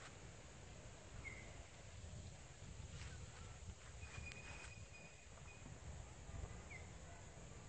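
Faint open-field ambience: a low rumble with a few short, high bird chirps, about a second in and again near the end, and a thin, high held call lasting about a second midway.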